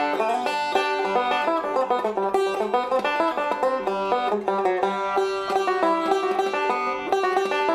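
Fender LEO banjo being played, a steady stream of quickly picked notes in a tune.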